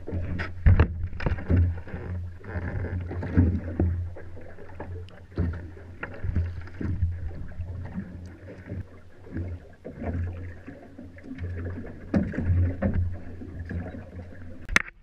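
Water slapping and splashing against the hull of a small fishing boat at sea, with irregular knocks over a steady low hum. A single sharp click comes near the end.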